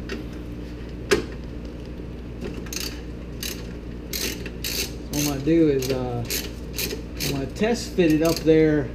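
3/8-inch drive ratchet with an extension and 16 mm socket clicking in runs of strokes as it turns the evap canister bracket's hold-down bolts, the clicks coming thicker in the second half. A wavering pitched sound rises over it twice in the second half.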